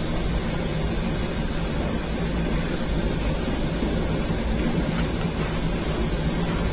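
A rotating bakery oven for flatbread running: a steady rushing noise with a low hum underneath.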